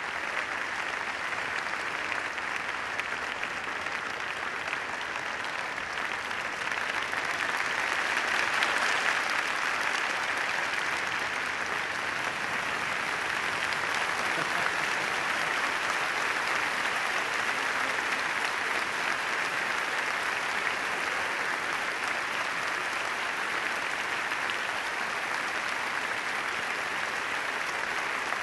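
A large audience applauding steadily and without let-up, the clapping swelling a little about eight seconds in.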